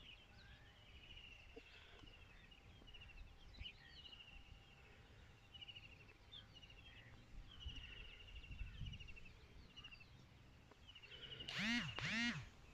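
Small birds chirping and trilling in short repeated phrases, then two loud quacks of a duck near the end.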